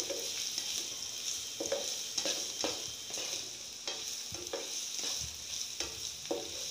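Chopped red onions, garlic and ginger sizzling in hot coconut oil in a non-stick frying pan, with a spatula scraping and knocking against the pan in repeated, uneven stirring strokes over a steady hiss.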